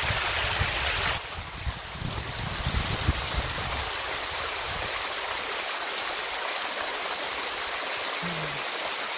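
Steady rushing of stream water pouring over rocks, with some low rumbling knocks during the first few seconds.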